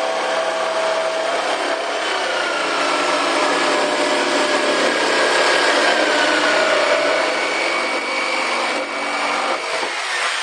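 Cutting through the cooler's material: a steady rasping, sawing noise with wavering squeaky tones, stopping near the end.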